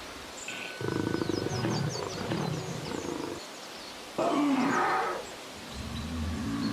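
Dinosaur roar sound effects: a rough growling roar about a second in that lasts a couple of seconds, then a louder, pitched bellow that falls in pitch around four seconds in, followed by a low steady rumble near the end.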